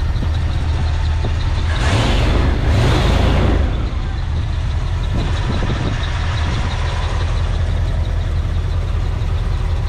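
1988 Ford pickup's V8-less-specified engine running at idle just after starting, a steady low drone, with a louder, rushing stretch for about two seconds starting near two seconds in. The owner finds it sounds very nice and guesses it has headers or a Flowmaster muffler.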